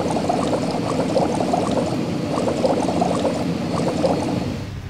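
Cartoon car-wash sound effect of water and soap foam: a dense, steady run of small liquid pops and splashes as the spinning brush scrubs the truck, fading out near the end.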